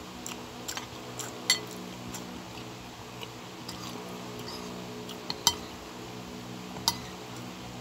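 Metal spoon and fork clinking and scraping against a bowl as pasta is stirred and twirled: scattered sharp clinks, three of them louder, over a steady low hum.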